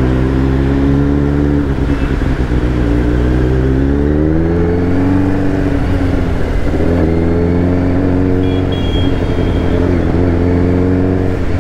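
Kawasaki Z900's inline-four engine running at low speed in traffic, heard from the rider's seat: steady at first, then revving up as the bike pulls away about four seconds in, easing off and holding steady again. Road and wind noise runs underneath.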